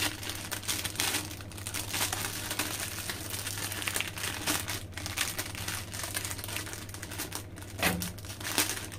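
Small plastic snack sachet crinkling irregularly as it is handled and pulled open at its top edge by hand, over a low steady hum.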